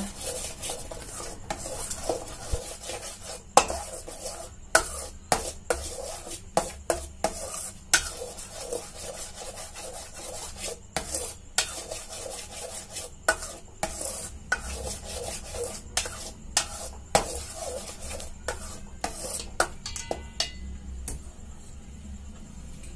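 Metal spoon stirring and scraping thick, reduced milk in a stainless steel pan, with irregular clinks and scrapes against the pan. This is palkova mixture being mixed after the sugar goes in. The strokes thin out near the end.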